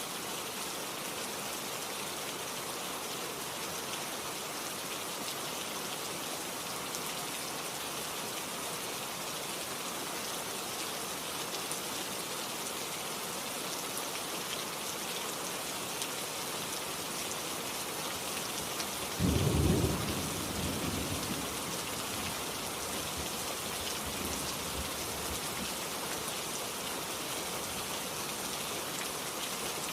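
Heavy rain falling steadily. About two-thirds of the way through, a sudden clap of thunder breaks in, the loudest thing heard, and rolls away as a low rumble over several seconds.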